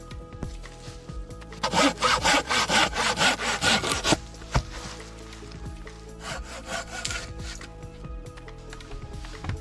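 Hand saw cutting through wood in quick strokes, about five a second, for two and a half seconds, followed by a single knock. A shorter, fainter run of saw strokes comes about six seconds in.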